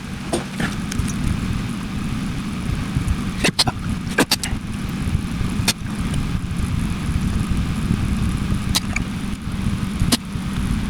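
Steady low hum with about five sharp, separate clicks from small hand tools working on a motherboard's soldered joints.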